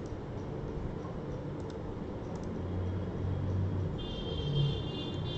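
A few computer mouse clicks over a steady background hiss and hum; a high, thin, steady whine comes in about four seconds in.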